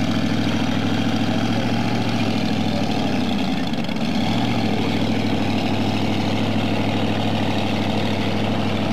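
Engine running steadily: a low, even drone of several fixed tones. About three and a half seconds in, one tone dips in pitch and comes back up.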